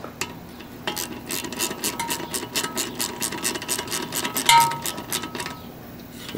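Briggs and Stratton recoil starter pulley turned by hand in its sheet-metal shroud, giving a fast run of metallic clicks with a ringing note, several a second, and one louder clank about four and a half seconds in. This is a function test of the rewound recoil spring, whose broken hook has just been re-bent.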